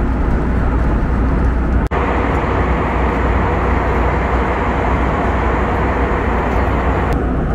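Steady cabin noise inside an Airbus A321neo in flight: airflow and engine drone over a deep rumble. It drops out for an instant about two seconds in, and loses some of its hiss near the end.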